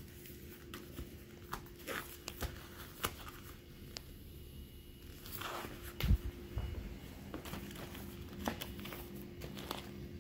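Deflated vinyl inflatables crinkling and rustling as they are handled and folded, with a few footsteps and a single thump about six seconds in. A faint steady hum runs underneath.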